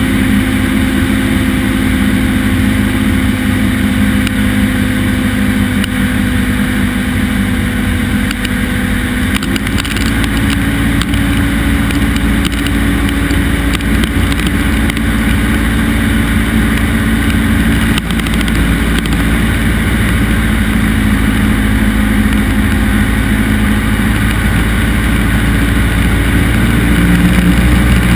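Cessna 172's piston engine and propeller running steadily in flight, heard inside the cabin as a loud drone with rushing air. The engine's pitch shifts slightly about nine seconds in, and the low rumble grows near the end.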